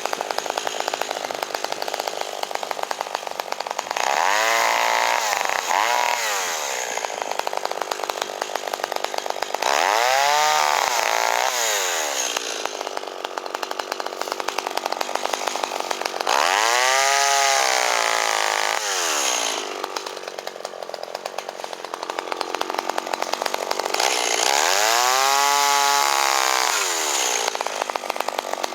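Two-stroke chainsaw bucking a fallen pine: the engine revs up and back down four times as it cuts, running at a lower speed in between.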